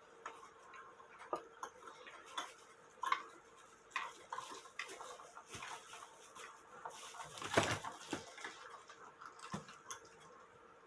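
Irregular small metallic clicks and taps from wire and metal parts being handled while fastening a cuckoo clock movement to a test stand, with a louder cluster of clatter about seven and a half seconds in.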